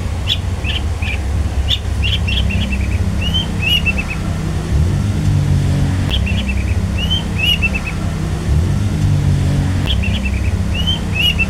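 Long-tailed shrike (cendet) calling its "toet toet tet tet" phrase. Each phrase is a few sharp notes, then a rising-and-falling whistle and a quick run of short notes, repeated about every four seconds. A steady low rumble runs beneath it.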